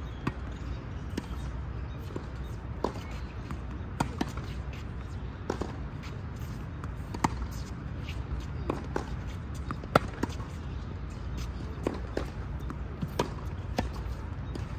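Tennis ball hit by rackets and bouncing on a hard court: a run of sharp pops at irregular intervals, the loudest about ten seconds in, over a steady low background rumble.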